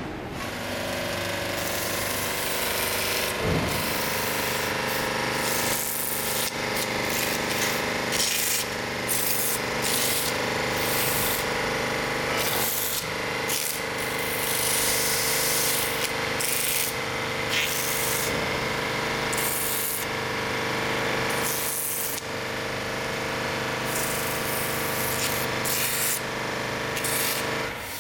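Factory machinery running continuously with a steady humming drone, overlaid by intermittent abrasive hissing like sanding or buffing that surges and fades every second or so.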